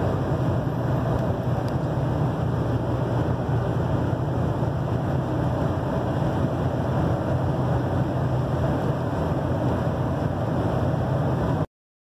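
Steady engine drone and road noise heard inside a GMC pickup's cab as it drives along a road, with a low hum; it cuts off suddenly near the end.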